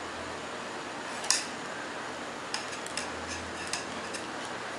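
Metal knitting needles clicking against each other as stitches are worked, over a steady hiss. There is one sharp click about a second in and a few lighter clicks later.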